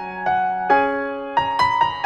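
Background music: a gentle piano melody, single notes struck a few times a second over sustained chords.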